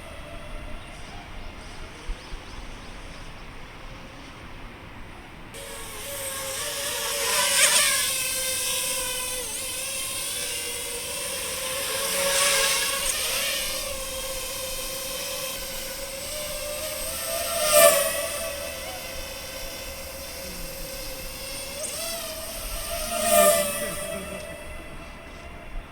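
DJI FPV drone's propellers whining while it flies repeated close passes, the sound swelling to a loud rush four times about five seconds apart, with the pitch bending at each pass.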